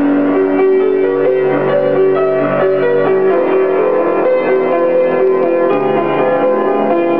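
Solo piano playing held chords and a melody line in the closing bars of a gospel song.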